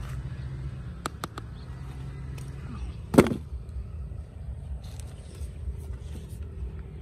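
Hands rummaging through rubbish: scattered clicks and crackles of plastic and debris being handled, with one loud knock a little past three seconds in, over a steady low rumble.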